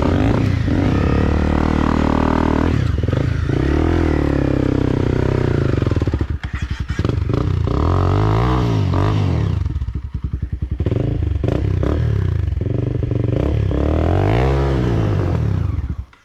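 Motorcycle engine revving hard on a rough off-road trail, its pitch climbing and falling several times as the throttle is worked, with some clatter. It cuts off abruptly near the end.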